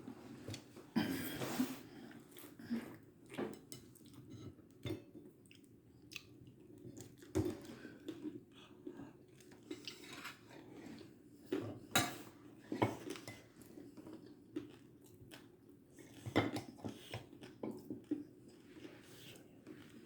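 Irregular clinks, knocks and crunchy handling noises of kitchen utensils and dishes during food preparation, some knocks louder than the rest.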